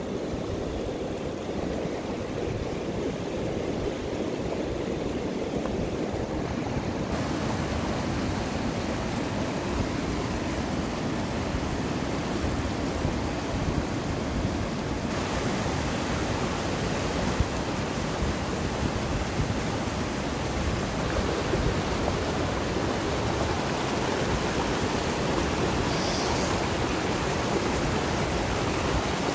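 A fast, shallow mountain river rushing and splashing over boulders in white-water rapids: a steady rush that grows fuller and brighter in two steps, about seven and fifteen seconds in.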